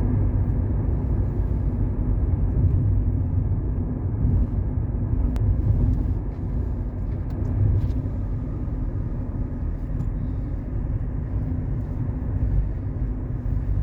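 Steady low rumble of a car driving, with a faint steady hum.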